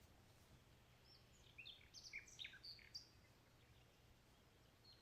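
Faint birdsong: a quick run of short, high chirps from about one to three seconds in, over a low steady hum.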